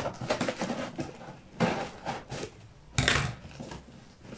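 Scissors and hands working at the packing tape and cardboard of a shipping box: a run of short scrapes and rustles, with two louder rasping rips about one and a half and three seconds in, the second the loudest.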